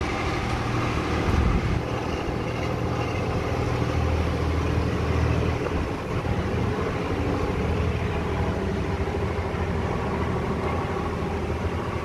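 Storm wind in strong gusts, a steady rushing noise with a low rumble that swells and eases, loudest about a second and a half in and again around four to five seconds.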